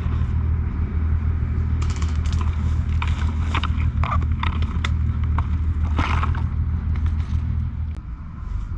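A steady low vehicle-engine rumble that drops away near the end, with a dozen scattered sharp pops and clicks of airsoft gunfire over it.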